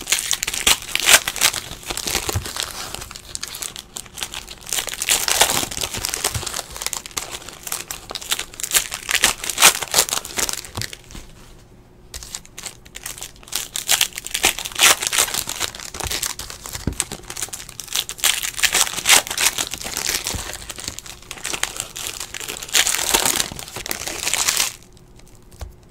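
Foil trading-card pack wrappers crinkling and tearing as packs are opened by hand, a dense run of quick crackles, with a short lull about halfway through.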